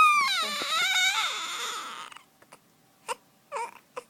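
A high-pitched whining cry, held and then wavering and falling in pitch for about two seconds, followed by two short squeaks about half a second apart near the end.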